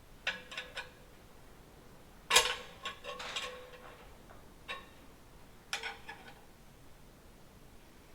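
Metal tools and steel engine parts clinking and ringing while the cylinder bank of a Rolls-Royce Meteor V12 is wound off its studs: a few scattered clinks, the loudest about two seconds in, with quieter ones around it.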